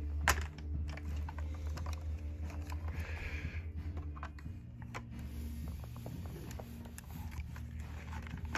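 Scattered plastic clicks and handling rustles as the parts of a cordless stick vacuum are fitted together, over a steady low hum.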